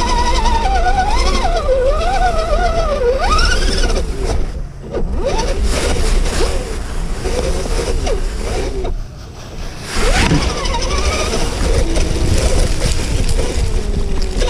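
Electric motor and geared drivetrain of a 1/10 scale RC crawler whining, the pitch rising and falling with the throttle, with two brief lulls about five and nine seconds in.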